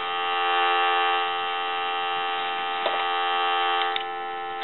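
Dial tone from the amplified handset receiver of a Western Electric 500 rotary telephone, a steady buzzing tone that swells a little about half a second in. A couple of light clicks come in the second half.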